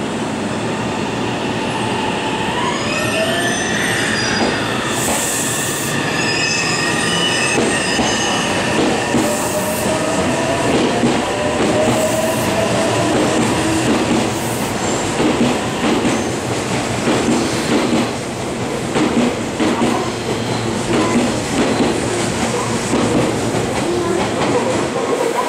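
A Meitetsu 3150 series and 2200 series electric train pulls into the platform. Its inverter motor whine glides in pitch and then falls slowly as the train brakes, over steady wheel rumble, clatter over the rail joints and high wheel squeal.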